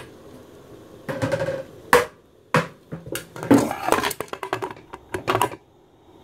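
Metal lid of a stovetop pressure cooker being set on the pot and closed: a run of clanks, scrapes and sharp clicks, the loudest just before it goes quiet.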